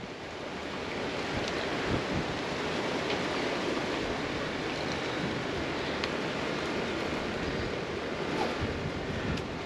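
Steady rushing water noise with wind, and a few faint ticks.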